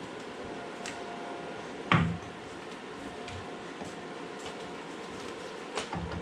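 A single sharp knock about two seconds in and a couple of lighter clinks near the end, from tools and parts being handled while the CV shaft is worked out of a UTV's front hub, over a steady background hum.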